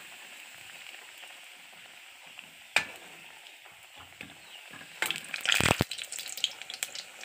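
Sattu-stuffed puris sizzling as they deep-fry in hot oil in a kadhai. There is one sharp metal click a little under three seconds in, and about five seconds in comes a loud burst of scraping and clattering as the perforated metal skimmer works against the pan.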